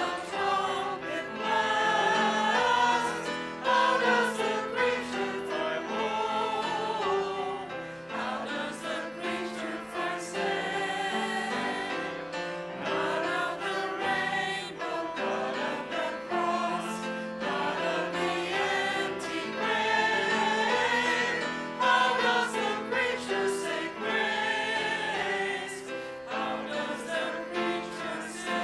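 A group of voices singing a hymn together over long, steady held chords.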